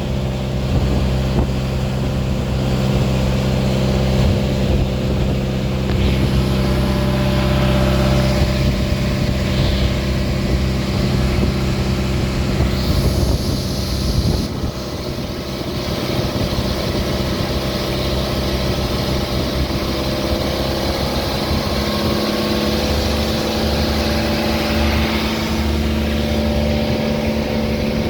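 Small boat engine running steadily, its note stepping up slightly about two-thirds of the way through.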